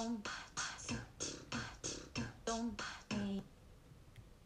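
Amazon Alexa's synthesized voice doing beatbox: quick drum-like kick and snare sounds about three a second, with a few short sung bass notes. The routine breaks off about three and a half seconds in.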